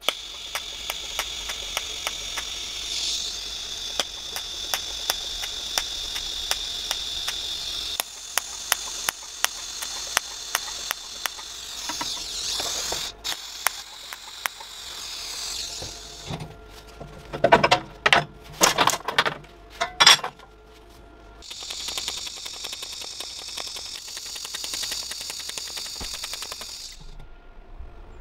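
TIG welding arc on stainless-steel sheet: a steady high hiss with a regular fine ticking, broken about two-thirds of the way through by a few seconds of loud metal knocks before the arc hiss resumes.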